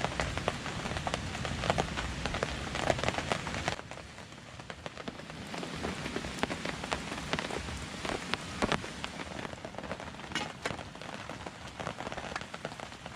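Rain falling on a camp tarp, a steady hiss with many separate drop hits ticking throughout; it turns quieter about four seconds in.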